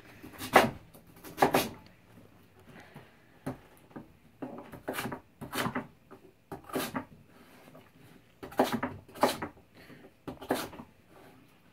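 Kitchen knife chopping raw sweet potato into cubes, with cubes dropped into a glass baking dish: a string of about eight sharp, irregular knocks with quiet gaps between them.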